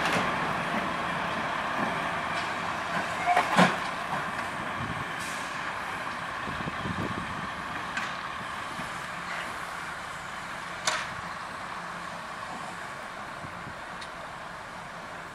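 Railway noise: a steady hiss and engine rumble that slowly fades, broken by a sharp knock about three and a half seconds in and another near eleven seconds.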